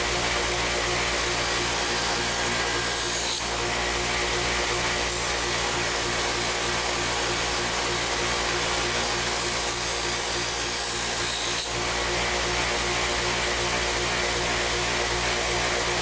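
Bench grinder motor running steadily with a hum and an even abrasive hiss, as a stainless knife blade is held against its spinning Scotch-Brite wheel to polish out blemishes to a uniform finish.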